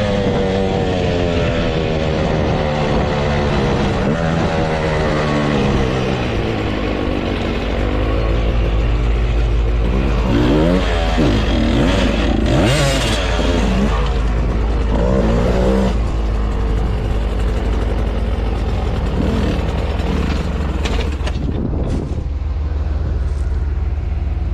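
Dirt bike engine coming off riding speed, its pitch falling over the first few seconds, then a few quick throttle blips about halfway through before it settles to a steady idle.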